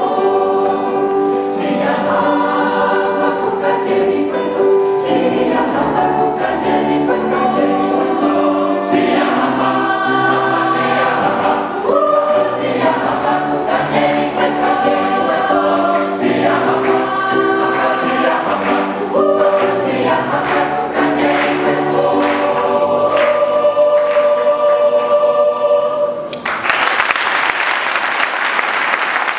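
Gospel choir singing a song. Near the end the singing stops and a large audience applauds.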